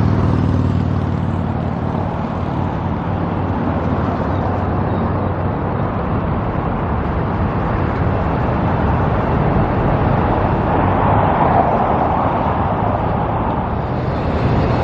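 Steady road traffic: cars running past on a busy street, with an engine hum early on that fades and another vehicle passing louder about eleven seconds in.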